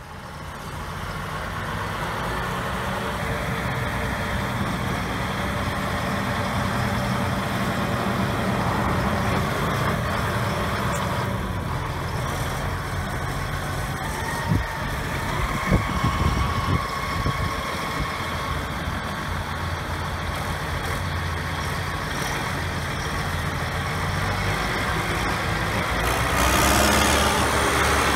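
2012 John Deere 7330 tractor's six-cylinder diesel engine running steadily as the tractor drives by on pavement, with a few sharp knocks about halfway through. The engine gets louder near the end as the tractor comes toward the microphone.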